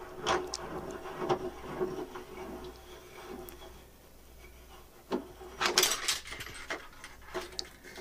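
Small clicks and creaks of a crimped wire being strained on a force-gauge pull rig, then, about five seconds in, a quick clatter of sharp knocks as the connector pulls free of the vise and the hook and gauge knock about.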